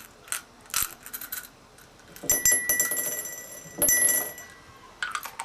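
Small hard pieces being dropped into a refillable cabinet knob: a few light clicks, then a sharp strike about two seconds in that leaves a clear bell-like ring, struck again near four seconds.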